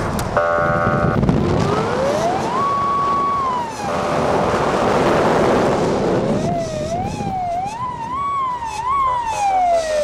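Police car siren: a short steady tone about half a second in, then a wail that rises, holds and falls. A loud rush of vehicle noise follows. From about six seconds the siren switches to a quicker up-and-down warble that winds down in a long falling glide at the end.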